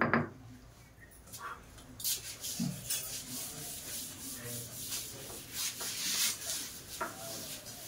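Blackboard duster rubbed back and forth over a chalkboard, erasing chalk: repeated swishing strokes that begin about two seconds in and go on unevenly.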